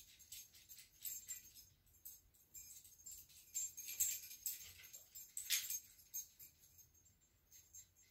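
Faint metallic jingling in irregular bursts, the clearest about four and five and a half seconds in, over a faint high ringing.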